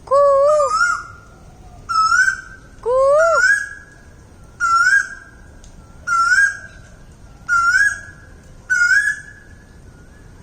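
Asian koel calling: a loud rising call repeated seven times, roughly one every second and a half, each ending on a held note.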